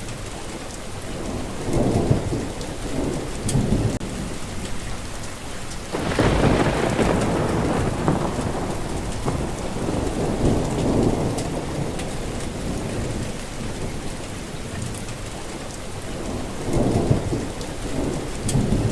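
Steady rain with thunder. A low rumble comes about two seconds in. A loud thunderclap breaks suddenly about six seconds in and rumbles on for several seconds, and another rumble comes near the end.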